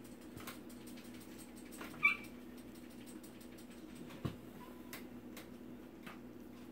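Electric hair clippers buzzing steadily during a haircut. About two seconds in, a short high squeak rises above the buzz, and a few faint clicks and knocks follow.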